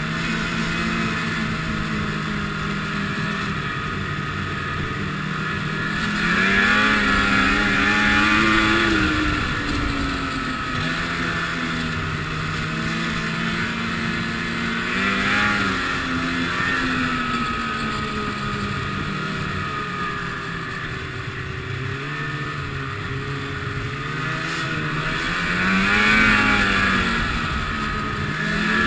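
Ski-Doo MXZ snowmobile engine running at trail speed. It revs up three times as the throttle is opened, with a rising and falling pitch each time.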